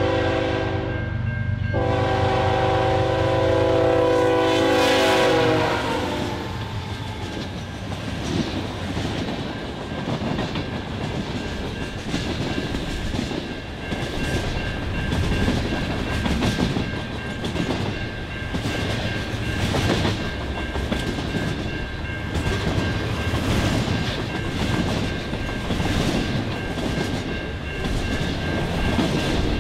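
Diesel freight locomotive's multi-chime air horn blowing a short blast and then a long one over the rumble of the passing engine, ending about five seconds in. Then the freight cars roll past with the clickety-clack of wheels over rail joints and a faint steady high-pitched ring.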